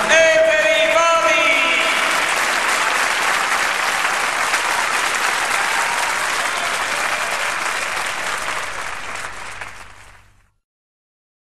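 Audience applauding, with a voice heard over the clapping in the first couple of seconds; the applause fades out about ten seconds in.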